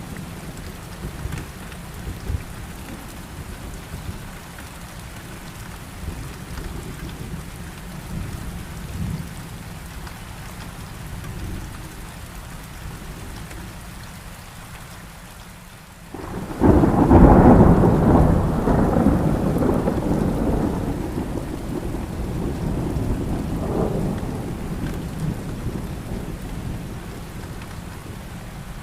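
Thunderstorm: steady rain with low rumbles of thunder. A bit past halfway, a sudden loud thunderclap breaks in and rolls away slowly over the next several seconds.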